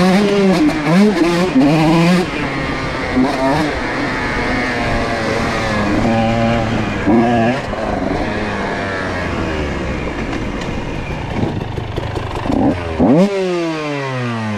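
125cc two-stroke dirt bike engine revving hard, its pitch rising and falling again and again as the throttle is worked through the trail. Near the end there is a loud blip, then the revs fall away steeply as the throttle is shut.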